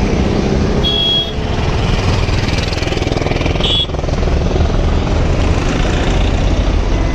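Road traffic noise heard from a bicycle riding in traffic: a steady low rumble of passing vehicles. Two brief high-pitched tones cut through, about a second in and again near four seconds.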